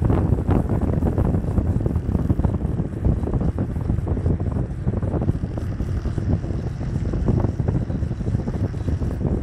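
Wind buffeting the microphone over the low rumble of a moving vehicle.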